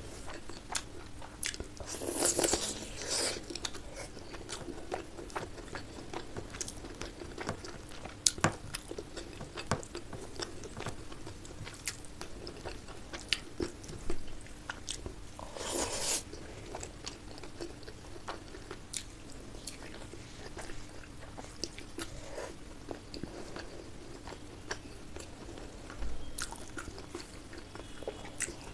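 Close-miked chewing and biting of curry and rice, with wet mouth clicks and smacks throughout and louder bouts of chewing about two seconds in and again around sixteen seconds.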